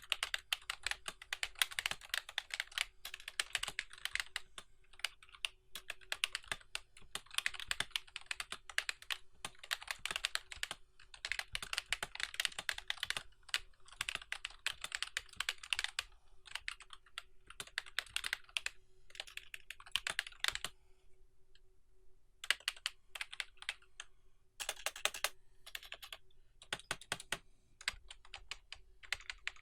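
RAKK MUA semi-mechanical keyboard being typed on in fast, dense runs of key clicks. The typing breaks off briefly about two-thirds of the way through, then goes on as slower, scattered keystrokes.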